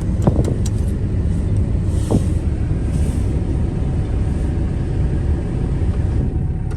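John Deere 85G excavator's diesel engine running steadily at a low rumble, heard from inside the cab, with a few sharp clicks about half a second in.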